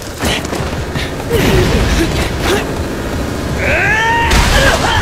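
Anime fight sound mix: music under a series of hard hit sound effects, with rising and falling pitched sweeps about three and a half seconds in and a loud noisy burst just after.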